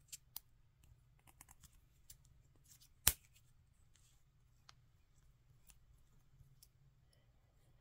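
Fingernails and fingertips handling a plastic mascara tube: scattered light taps and sharp clicks, with one much louder click about three seconds in.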